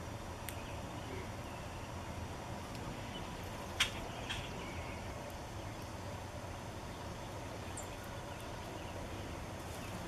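Outdoor garden ambience: a steady low rumble with faint, scattered bird chirps. A single sharp click comes a little before four seconds in, and a softer one about half a second later.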